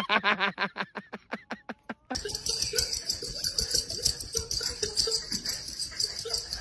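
A quick run of short pitched calls from a small dog, about eight a second, fading out over the first two seconds. Then a spotted wild-type cat, mouth open, calls in rapid repeated chirps, about four a second, over a steady hiss.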